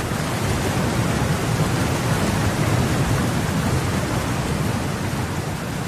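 Steady rushing of water, starting suddenly and fading toward the end.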